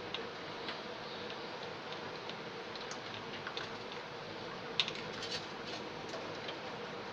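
Scattered light clicks and taps over a steady hiss and faint hum, with a quick cluster of clicks about five seconds in, the loudest of them near the start of that cluster.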